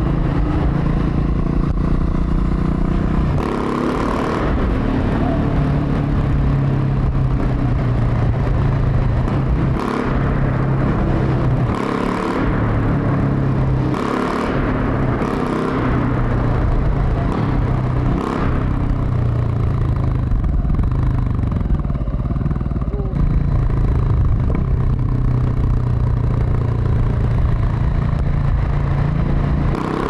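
KTM 690 SMC R's single-cylinder engine running through a LeoVince SBK aftermarket exhaust while riding, its note rising and falling with the throttle, with several brief surges in revs.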